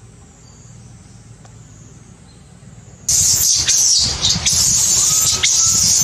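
Faint outdoor background, then about three seconds in a sudden, loud, shrill screaming from a newborn macaque.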